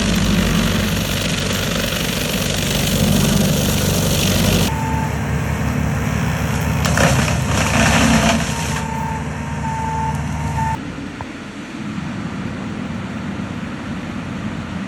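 Skid steer engine running hard, with a backup alarm beeping in repeated short beeps partway through. The sound changes abruptly twice as separate shots are cut together.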